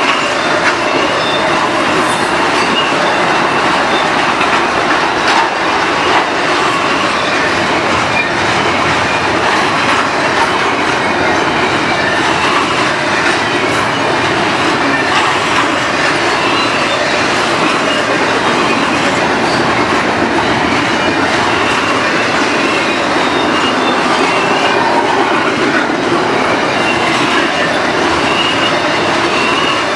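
Double-stack intermodal freight train's well cars rolling past, a steady rumble of steel wheels on rail with sharp clicks from the rail joints and a faint high squeal now and then.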